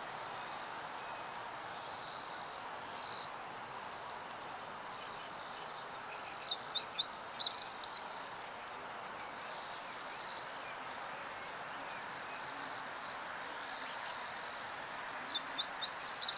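A songbird singing two short phrases of quick, high, sweeping notes, each about a second long and about nine seconds apart. Fainter short high calls repeat every few seconds over a steady background hiss.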